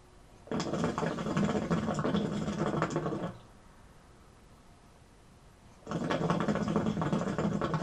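Hookah water bubbling as smoke is drawn through the hose: two pulls of about three seconds each, the second beginning about six seconds in.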